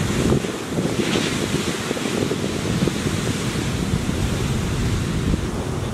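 Wind buffeting the microphone over the steady rush of large breaking surf.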